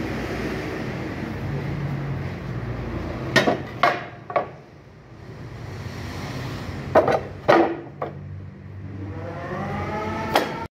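Planed wooden boards knocking against each other and against metal bar clamps as they are set down, sharp knocks in two pairs and once more near the end, over a steady low hum.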